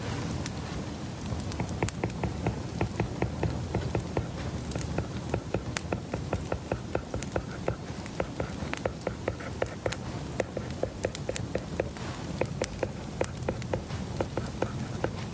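Rapid, irregular light clicks and taps from someone working at a desk, several a second, over a steady low hum.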